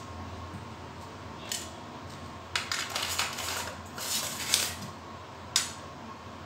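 A steel spoon scraping the cream filling off a split Oreo biscuit, with light clinks of metal against the steel plate: a few short scraping bursts in the middle and a sharp click near the end.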